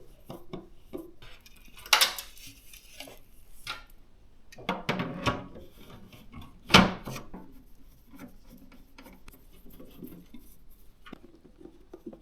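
Hard plastic and metal computer parts being handled and fitted together: a run of small clicks and clacks, with a rustle partway through and two sharper knocks, about two seconds in and about seven seconds in.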